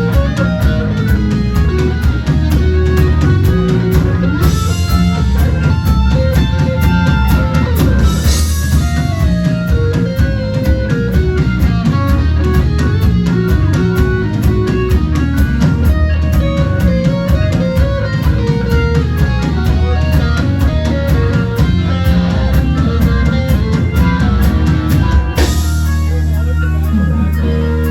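Live rock band playing an instrumental passage: an electric guitar lead over drums and bass. About 25 seconds in the drums stop and a held chord rings on.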